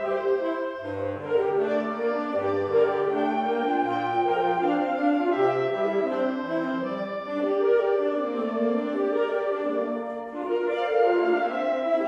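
Woodwind chamber ensemble of flutes, clarinets, bass clarinet, saxophones and bassoons playing sustained chords, with a low line of separate notes underneath that drops out about halfway through.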